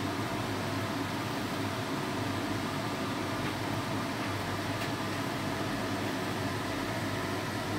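A steady whirring hum with an even hiss over it, unchanging throughout: a fan or small motor running in the kitchen.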